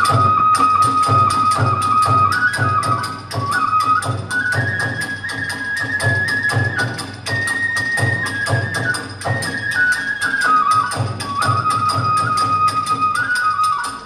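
Kagura festival music: a bamboo transverse flute plays a stepping melody over fast, even drum beats and clashing small hand cymbals, about four strokes a second.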